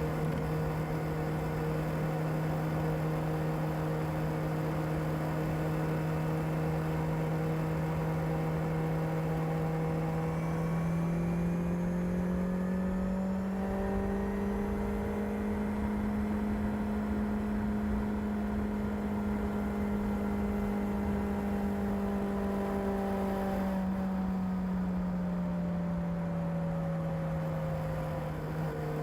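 Kawasaki ZR7S's air-cooled inline-four running on its stock exhaust at a steady pace. Its pitch rises a little about eleven seconds in, holds, then eases back down near the end.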